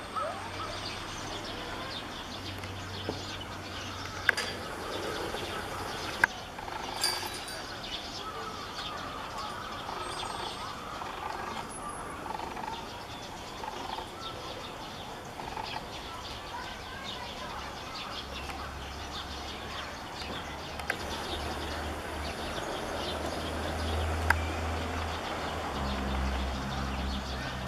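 Outdoor background ambience: a steady hiss with faint bird chirps and a few sharp clicks. A low rumble comes in during the last ten seconds.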